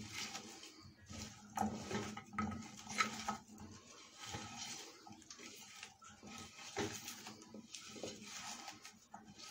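Hands mixing raw potato chunks and chopped vegetables in a large earthenware tagine: irregular knocks, clacks and rustling as the pieces tumble against each other and the dish's glazed sides.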